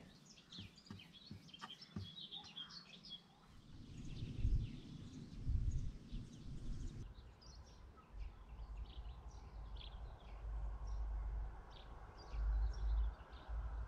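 Songbirds chirping and singing in the background, many short calls, with wind gusting on the microphone as a low rumble that swells about four seconds in and again toward the end.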